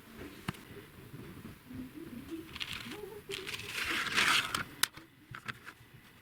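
3D printer running, its stepper motors whirring in short tones that keep shifting pitch, with scattered clicks. Around the middle comes a louder stretch of rustling, scraping noise that ends in a sharp click.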